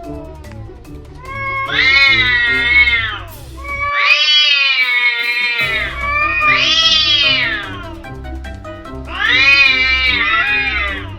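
Domestic cats yowling at each other in a standoff before a fight: four long, drawn-out wavering calls, each rising and then falling in pitch, over background music with a steady beat.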